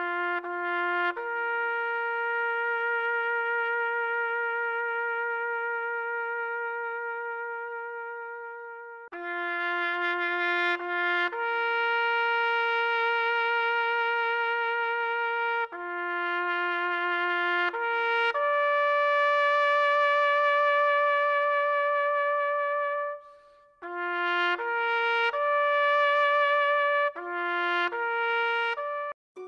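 Solo trumpet playing a slow melody of long held notes, each led in by a short lower note, the highest note held with a light vibrato.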